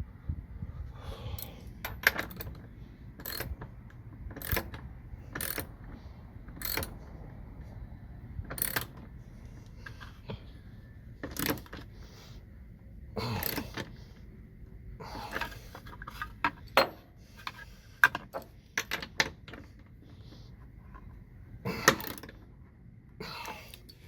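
Irregular metallic clicks and clinks of hand tools and bolts, mostly one sharp click every second or so, as seat-bracket and anchor bolts are fitted and tightened.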